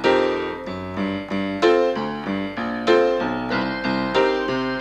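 Background piano music: a melody of struck notes, each one sounding and fading, with a new note every half second or so.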